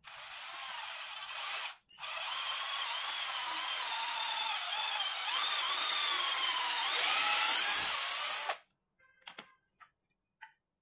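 Cordless drill boring a hole through a strip of wood: a short run, a brief stop, then a longer run of about six seconds whose whine rises and is loudest near the end before it cuts off. A few light clicks follow.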